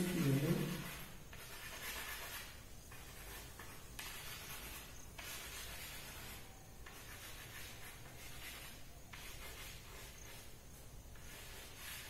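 Chalk rubbed against a chalkboard in repeated shading strokes: a faint, dry scratchy hiss in stretches of one to two seconds with short breaks between them. A woman's voice is heard briefly at the very start.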